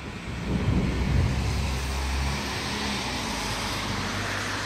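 A low rumble that swells to its loudest about a second in and then carries on steadily, with a hiss building toward the end.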